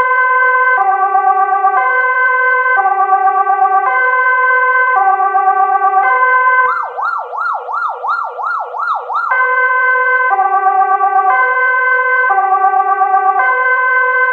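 Ambulance siren sounding a two-tone hi-lo pattern, switching between a low and a high note about once a second. A little past the middle it changes for a couple of seconds to a fast yelp of quick rising-and-falling sweeps, about two or three a second, then goes back to the two-tone.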